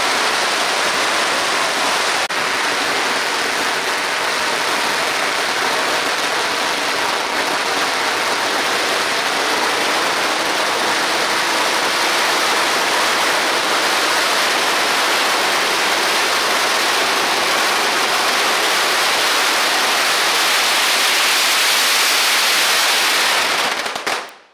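Long string of firecrackers going off without a break, a dense continuous crackle that cuts off suddenly near the end.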